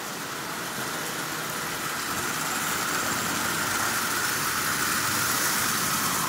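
Prewar Marx 999 toy steam locomotive's electric motor whirring as it pulls ten tin lithographed cars over tinplate track, with the wheels running on the rails. It grows louder about two seconds in as the train passes close by. The freshly oiled motor is running smoothly at half power.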